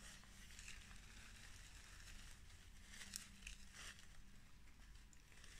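Near silence, with a few faint, brief rustles of a silk flower-and-ivy garland being handled.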